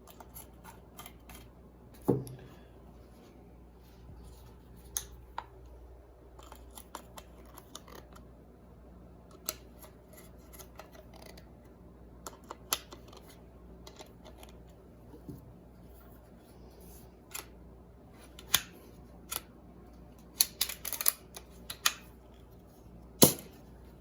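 Scattered small clicks and taps of a Daisy 105 Buck BB gun's parts being handled and its cocking action worked, with a quick cluster of clicks near the end and then one loud sharp snap. The action sounds as if the gun will shoot.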